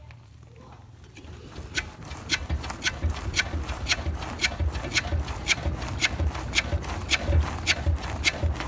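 Renault Kangoo rear axle beam silent-block bushings knocking as the car is rocked, starting about two seconds in: about two sharp knocks a second, each with a low thud beneath. The knock comes from a broken bushing rubbing.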